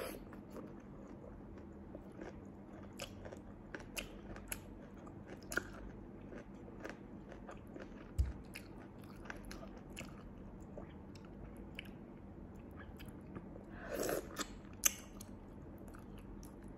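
Close-up mouth sounds of eating sea snails in sauce: chewing and sucking, with scattered sharp wet clicks and smacks and a louder slurp near the end.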